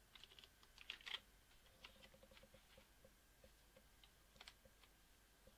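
Faint, scattered clicks of a computer keyboard and mouse, with a quick run of tiny ticks partway through, over near-silent room tone.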